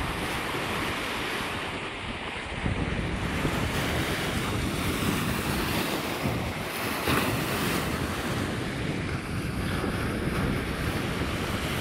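Small Baltic Sea waves breaking and washing up a sandy shore in a steady surf, with wind buffeting the microphone.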